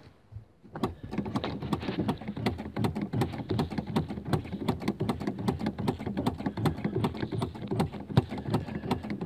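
Handling noise: rapid, irregular clicks and rustling as a snow-covered sneaker is worked off the foot in a vehicle footwell, with clothing brushing the microphone. The engine is not running.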